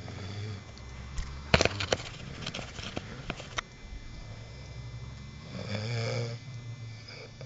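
A person snoring: one snore at the start and a louder one about six seconds in. Between them comes a run of sharp clicks or knocks, the loudest sounds here.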